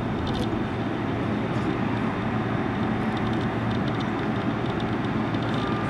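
Boeing 777's twin jet engines running as the airliner rolls along the runway, heard as a steady, even rumble with a hiss above it.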